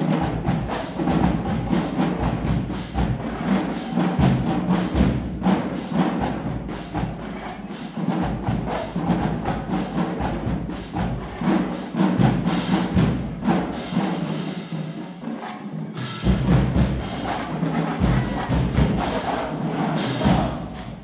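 HBCU marching band playing loud brass, with sousaphones in the low end, over a drum line giving frequent sharp hits.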